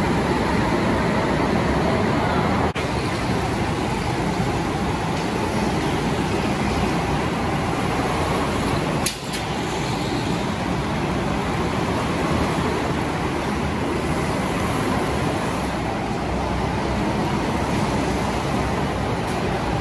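Racing go-kart running at speed: a steady, noisy drone with no clear engine note, briefly dipping about 3 and 9 seconds in.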